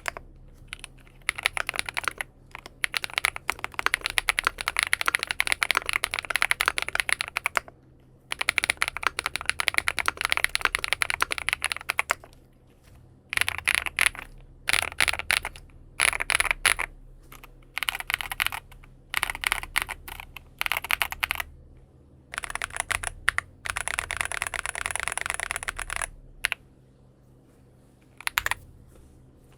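Typing on an aluminium-cased Xinmeng M71 mechanical keyboard fitted with BSUN Bunny switches: runs of rapid keystrokes in bursts with short pauses, dying away to a last short flurry near the end.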